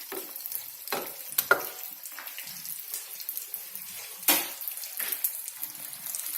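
Vermicelli-coated potato cutlets frying in hot oil: a steady sizzle with scattered crackles and pops, the loudest a sharp pop about four seconds in.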